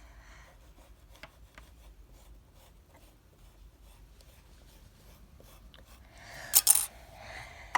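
Faint scratching and rubbing of hands and tools working modelling clay, with small ticks, then a loud short scrape about six and a half seconds in.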